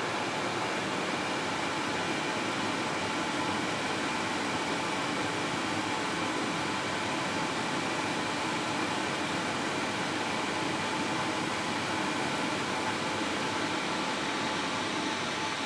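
A cartoon recovery sound effect time-stretched many times over with Paulstretch, smeared into a steady hissing drone with faint held tones inside it.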